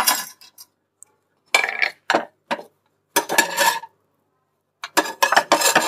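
Metal spatula scraping and clinking against a non-stick frying pan as it is worked under a thick omelette to lift and turn it. The sound comes in several short bursts with quiet gaps between.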